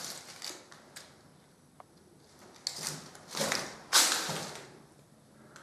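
Footsteps: a handful of short scuffing scrapes, the loudest about four seconds in, with one sharp click near two seconds in.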